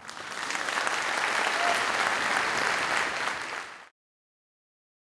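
Audience applauding, starting suddenly and cutting off abruptly just under four seconds in.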